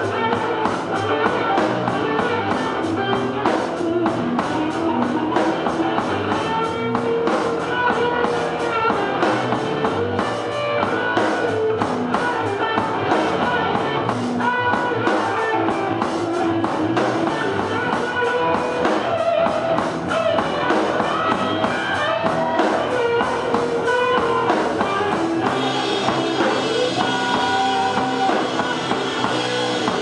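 Live rock music from a guitar-and-drums duo: electric guitar played through an amplifier together with a drum kit.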